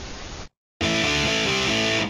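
Static hiss of a TV-noise transition effect, cutting off suddenly about half a second in. After a short silence, distorted electric guitar music comes in loud.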